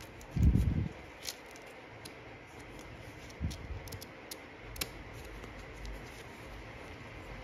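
Stiff paper cards handled and thumbed through by hand: light paper clicks and rustles as the card edges flick, with a dull low thump about half a second in.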